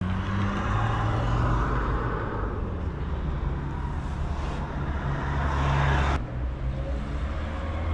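Car engine running steadily with a low hum, with an abrupt change about six seconds in.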